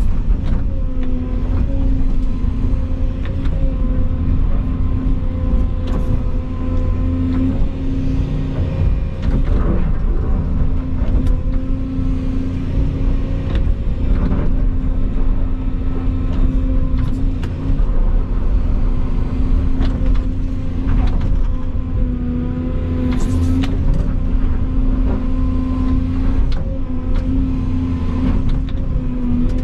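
Volvo excavator's diesel engine running steadily under work, a constant hum, with scattered knocks and clicks from the machine working.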